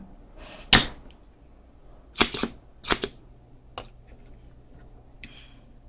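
A spring-loaded desoldering pump firing with sharp snaps as solder is sucked off the relay pins one by one: a few snaps about a second apart, a close pair among them.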